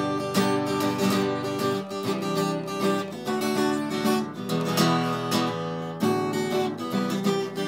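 Cutaway acoustic guitar strummed by hand, chords played in a steady rhythm that starts suddenly.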